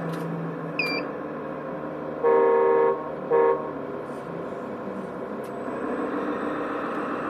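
Sound module of an RC Iveco Trakker 6x4 tipper truck playing a steady diesel idle, with two horn toots a little over two seconds in, the first about half a second long and the second shorter. A short high chirp comes about a second in.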